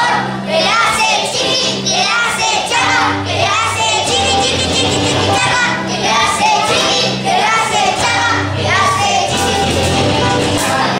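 A song with singing voices over a steady bass line.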